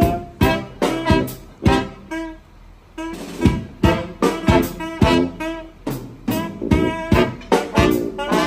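Live brass band playing an upbeat jazz tune: saxophones, trombone and trumpet over a drum kit, with frequent sharp drum hits.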